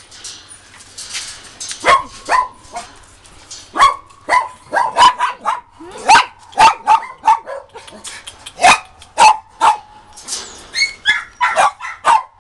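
Dogs barking: a rapid, irregular string of short, high-pitched barks. They start about two seconds in and come roughly twice a second.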